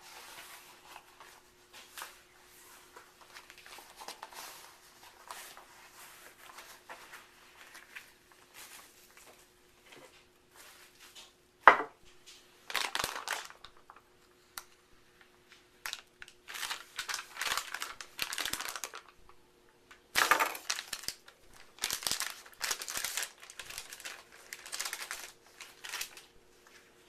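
Hands working with disposable gloves and a soap mould, making crinkling and rustling sounds that grow louder in the second half. There is one sharp knock about halfway through, and a faint steady hum underneath.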